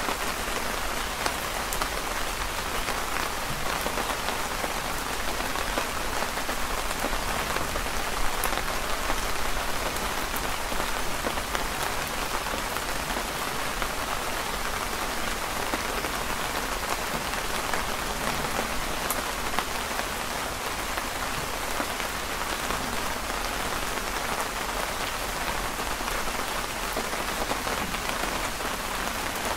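Steady rain falling on a canopy overhead, an even hiss of many drops, with a few isolated sharp clicks.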